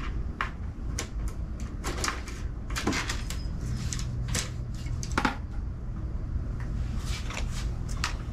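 Fishing rods and reels clicking and knocking against one another as rods are shifted and one is drawn out of a crowded rod rack: irregular light clacks, about a dozen, over a steady low hum.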